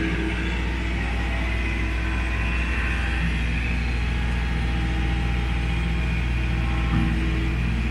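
Compact diesel tractor engine running steadily under light load while it works loose topsoil, with one short knock near the end.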